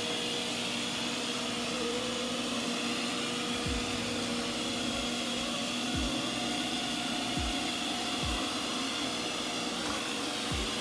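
Ecovacs Deebot N79W robot vacuum running, a steady whirr of its motor and brushes, with a few soft low thumps along the way.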